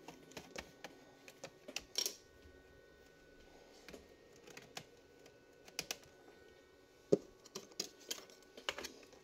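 Plastic snap clips of a Lenovo V15 laptop's bottom cover clicking as the cover is pried loose: scattered sharp clicks, the loudest about two seconds in and just after seven seconds.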